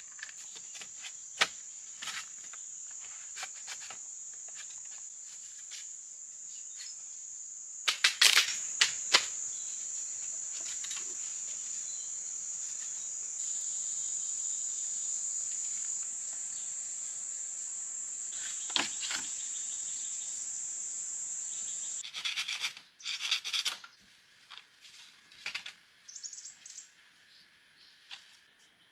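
Insects buzzing in the jungle, one steady high-pitched drone that cuts off suddenly about twenty-two seconds in. Scattered sharp clicks and knocks sound over it, with a cluster of louder ones around eight seconds in, and bursts of rustling follow after the buzz stops.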